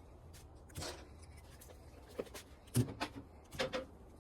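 A few faint, short clicks and knocks, spaced irregularly, over a low steady hum.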